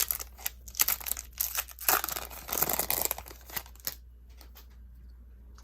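Wrapper of a Topps Update Series baseball card pack being torn open and crinkled, a run of sharp crackles with a longer tearing rip about two to three seconds in, then stopping about four seconds in.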